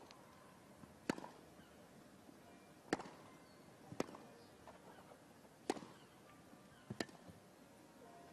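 Tennis rally: rackets strike the ball about six times, one to two seconds apart, with a quiet background between hits.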